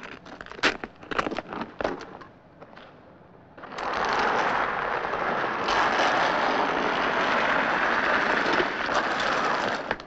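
A man's limp body being dragged by a rope along a tarmac road: a few scattered scuffs and clicks, then from about three and a half seconds in a steady, loud scraping.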